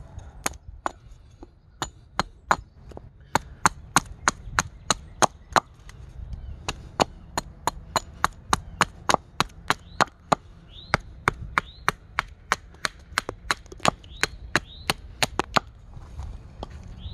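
Small carving axe chopping a cherry-wood spoon blank held upright on a chopping stump: a long, quick run of short, sharp chops, about three a second, stopping near the end.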